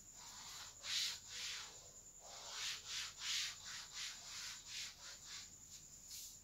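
Blackboard duster rubbing chalk off a chalkboard in a run of irregular back-and-forth wiping strokes.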